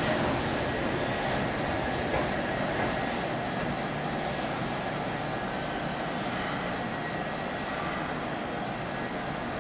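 Red-and-white Kintetsu electric train pulling out of a station and moving away, its running rumble slowly fading. Short high hissing swells come every second or two.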